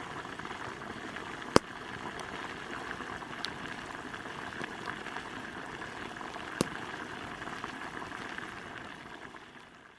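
Steady rain falling, an even hiss with two sharper taps of heavier drops, fading out near the end.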